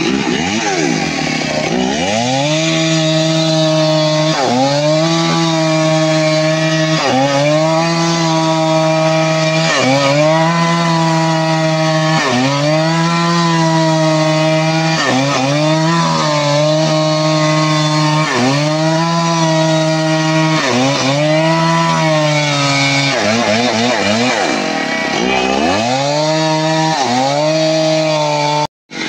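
Two-stroke chainsaw at full throttle ripping a log lengthwise into planks. The engine note dips and climbs back about every two and a half seconds as the bar is worked along the cut. The sound breaks off briefly near the end.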